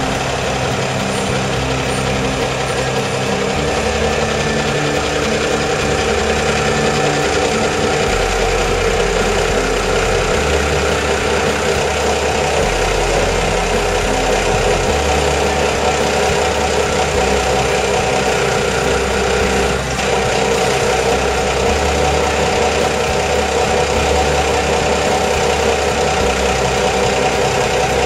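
Large boat-stacking forklift's engine running steadily while the forks lower a boat into the water, its low note shifting several times.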